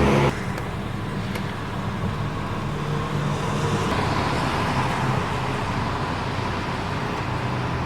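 Steady road and traffic noise: a rushing hiss with a low hum of a vehicle running, starting abruptly about a quarter of a second in.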